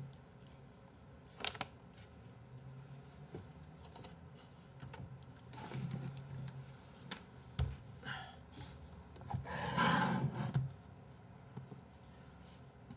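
A few scattered sharp clicks of a computer keyboard and mouse, with two brief low, muffled sounds in between, the louder about ten seconds in.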